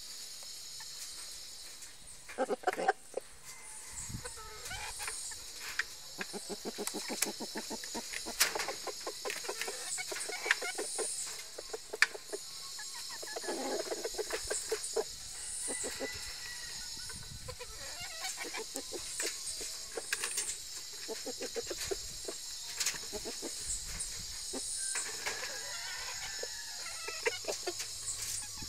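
Rooster and hen clucking in short runs while pecking feed, with sharp taps of beaks on the feed tub scattered throughout, over a steady high hiss.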